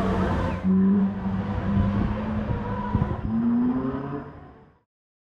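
Low, drawn-out pitched sound from an animatronic triceratops, in several long stretches that rise in pitch near the end, with a few sharp ticks, fading out shortly before the end.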